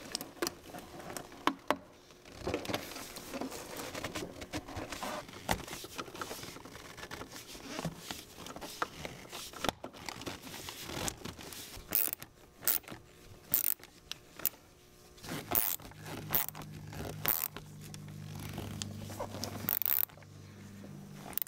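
Rubber intercooler hose scraping and rubbing as it is worked onto its pipe, then a hose clamp being tightened with a screwdriver, with scattered sharp clicks that come thicker in the second half.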